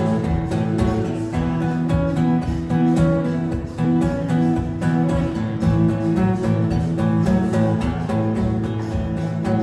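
Solo acoustic guitar playing a blues accompaniment, strummed in a steady, even rhythm.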